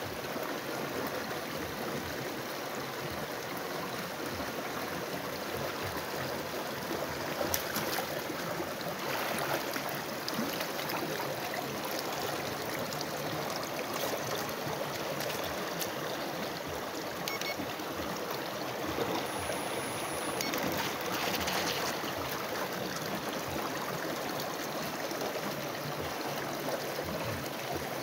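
Flowing water of a stream, a steady rushing and trickling.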